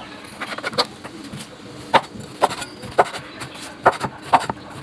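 Knife chopping on a wooden cutting board: about six sharp, irregularly spaced chops.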